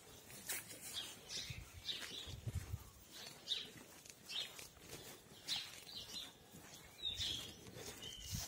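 Small birds chirping: short high calls repeated about once a second, with occasional low rumbles underneath.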